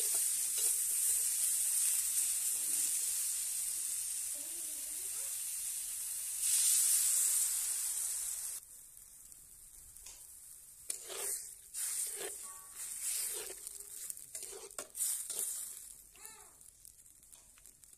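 Cauliflower florets sizzling in hot oil in a wok while a wooden spatula stirs them. About six seconds in, water poured into the pan sends up a louder burst of hissing, which stops suddenly. After that the spatula knocks and scrapes through the watery mix.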